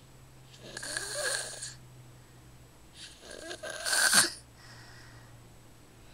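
Snoring: two snores about two seconds apart, the second louder and a little longer.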